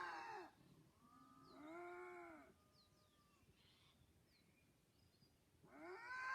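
Drawn-out, wailing animal calls, each rising and then falling in pitch. One trails off just after the start, a shorter one comes around two seconds in, and another begins near the end. The calls sound "painful" in tone, and their source is unidentified.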